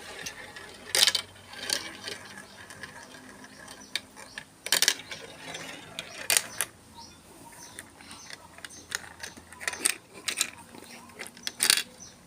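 Marbles rolling and clacking through a marble run: irregular sharp clicks and knocks with short rattling runs between them, the loudest hits about a second in, near five seconds and near the end.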